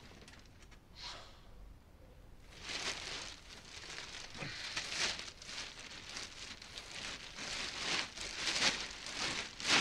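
Cloth rustling: clothing and bedding shifting as a man moves on a bed and handles something beside him, in a run of soft swishes. They are sparse at first, come thick from about two and a half seconds in, and the loudest comes just before the end.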